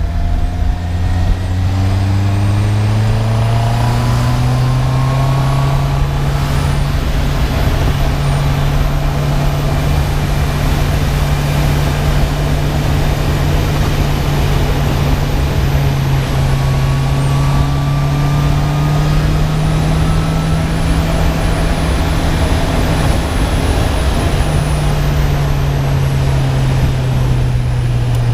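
Honda CB650R inline-four engine on the stock exhaust, ridden on the road: the engine note climbs under acceleration over the first few seconds, then holds steady at cruising revs with slight dips and rises. Wind rushes steadily underneath.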